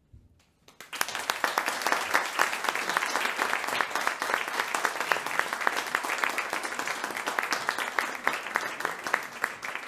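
Audience applause: many hands clapping, breaking out about a second in and staying dense and steady.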